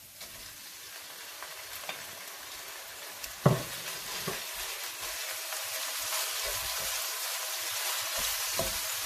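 Raw minced meat sizzling in hot ghee with garlic-ginger paste in a non-stick wok, the sizzle growing steadily louder as a wooden spoon stirs and breaks up the meat. One sharp knock about three and a half seconds in, then lighter taps and scrapes of the spoon.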